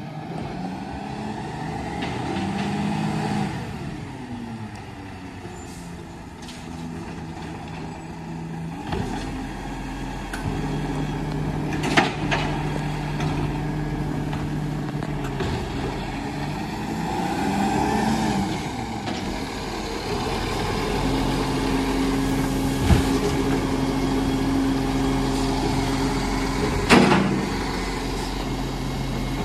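Iveco side-loader garbage truck's diesel engine approaching and pulling up at the kerb, its hum growing steadier and louder from about a third of the way in. Two sharp air-brake hisses, the second as it comes to a stop beside the bins.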